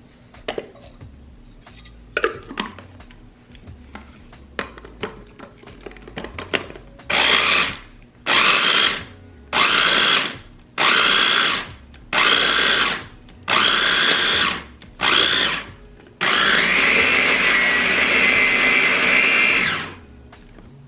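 Electric mini food chopper whirring in short pulses, about seven bursts of roughly a second each, then run steadily for about three and a half seconds as it grinds roasted pecans and brown sugar to a fine crumb. Before the motor starts there are a few light clicks as the bowl and motor top are fitted together.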